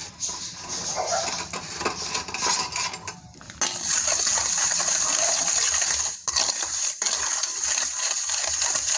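Steel spoon stirring sugar and a little water in a stainless steel bowl, undissolved sugar grains grating against the metal. Scattered clinks and scrapes at first, then from about four seconds in a steady, rapid scraping as the stirring speeds up, with a brief pause near the end.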